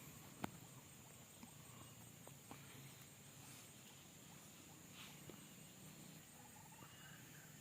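Near silence: faint outdoor ambience with a steady high-pitched drone. There is one sharp click about half a second in and a few soft ticks after it.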